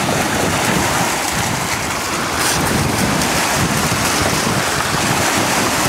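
Lake waves breaking and washing over the shallows, with wind buffeting the microphone.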